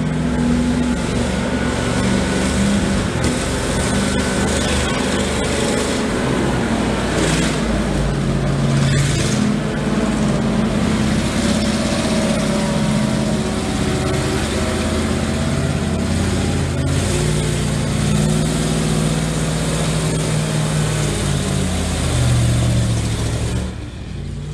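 Twin V8 petrol engines of a ZIL-135 eight-wheeled truck running under load as it crosses rough ground and climbs a slope, the engine note stepping up and down as the revs change. It gets somewhat quieter near the end.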